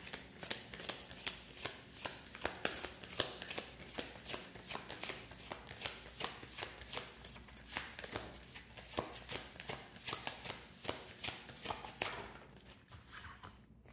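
Tarot deck being shuffled by hand: a quick, even run of card slaps, about three a second, that dies away shortly before the end.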